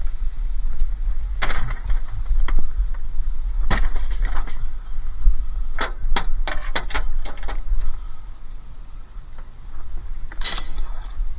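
Scattered sharp knocks and a quick run of clicks in the middle, over a steady low rumble.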